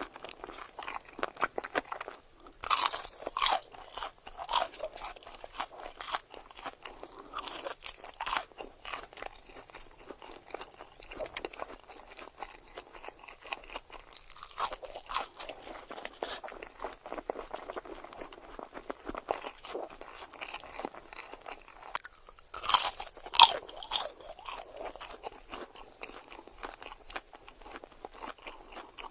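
Close-miked eating of crunchy food: a steady crackle of chewing, broken by several louder crunching bites.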